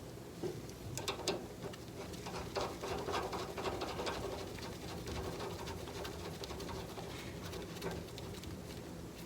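Irregular light clicks and knocks of hand tools and steel parts during work on the car's front steering linkage, busiest in the first few seconds.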